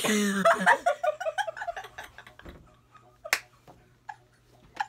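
A woman bursts out laughing, a quick run of high, repeated laughs for about two seconds that fades into quieter breathy laughter behind her hand, with one sharp click about three seconds in.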